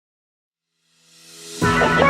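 Silence, then background music swelling in about a second in and starting fully just before the end, with a guitar-led sound.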